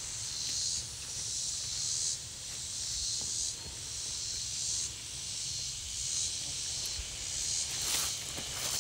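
Cicadas buzzing in a high, hissing chorus that swells and fades in waves every second or so. A few footsteps through grass near the end.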